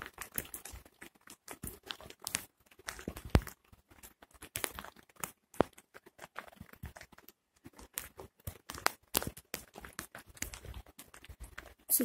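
Heavy rain, heard as irregular sharp taps of large drops striking close by, several a second.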